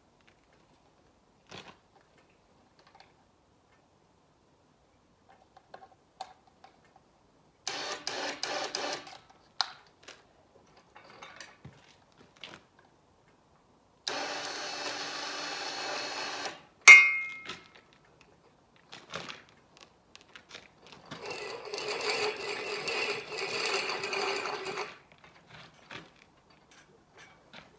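Winch on a bale trailer hauling a round hay bale by cable: three spells of mechanical whirring a few seconds each, the longest a steady run that ends in a sharp, loud click.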